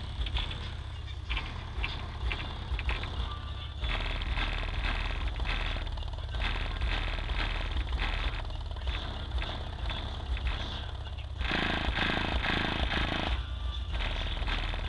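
Car audio system playing a rap song at high volume, dominated by deep bass from a single subwoofer in a ported box tuned to about 27–28 Hz, driven by a Hifonics 1210D amplifier. A low note is described as brutal, one that moves everything. The music swells louder for a couple of seconds about eleven seconds in.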